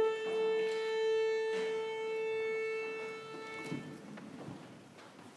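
Violin and piano holding a single steady A, about 440 Hz, for nearly four seconds before it stops: the tuning note before the piece begins. Faint shuffling follows.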